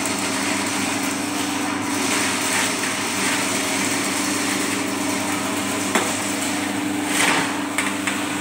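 Rothenberger R600 sectional drain-cleaning machine's electric motor running steadily, spinning its spring cable in the drain. There is one sharp knock about six seconds in.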